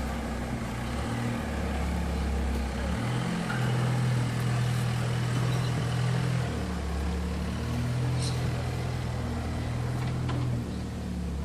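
Jeep engine running at low revs while crawling, its note stepping up and down slightly with the throttle.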